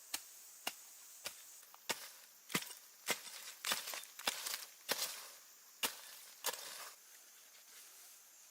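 Repeated chopping: a blade striking wood about eleven times at a steady pace of under a second apart, some strokes followed by a brief splintering rattle, then it stops.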